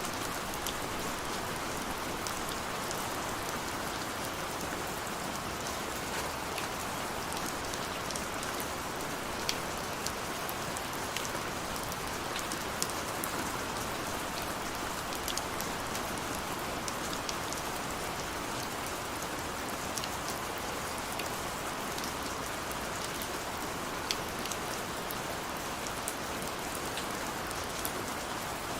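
Steady rain falling on hard surfaces, with scattered individual drops ticking sharply through the even patter.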